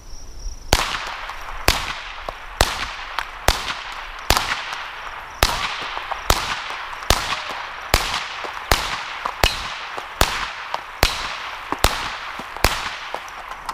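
Ruger 10/22 Takedown semi-automatic .22 Long Rifle rifle fired in a steady string of about fifteen sharp shots, a little under a second apart, each with a short echo.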